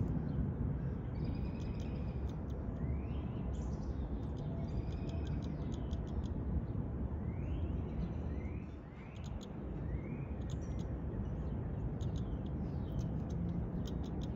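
Birds calling: several short rising chirps and many brief high ticking calls, scattered through, over a steady low rumble of background noise.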